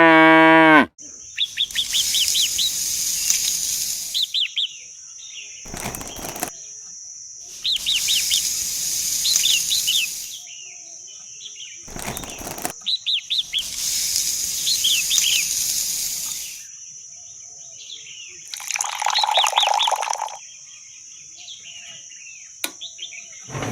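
Birds chirping in quick bursts of short high calls over a steady high hiss, the pattern repeating about every six seconds like a looped nature ambience. It opens with a loud held pitched tone that cuts off sharply about a second in.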